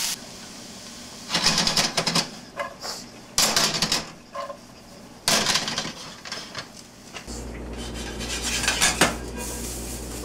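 Non-stick skillet of diced peppers and onions rattling and scraping against an electric coil burner in four short bouts as the pan is shaken. A steady low hum comes in about seven seconds in.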